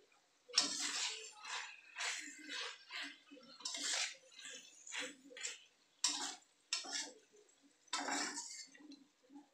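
Metal spatula scraping and knocking against a stainless steel wok in stir-frying, in repeated irregular strokes about two a second.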